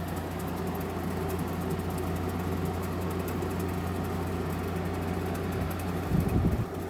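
General Electric 5,050 BTU window air conditioner running its fan on low with the compressor off. Water is splashing inside the unit, a sound called kind of annoying. A brief low bumping comes about six seconds in.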